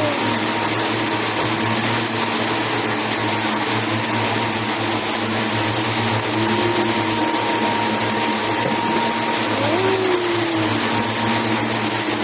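Machinery running steadily: a constant low hum under an even wash of noise, with a thin steady whine and a few short gliding tones about six and ten seconds in.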